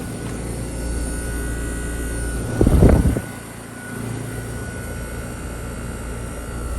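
Outdoor heat-pump condenser unit running: a steady fan and compressor hum with a thin high whine. About two and a half seconds in there is a short, loud rush, after which the hum drops a little.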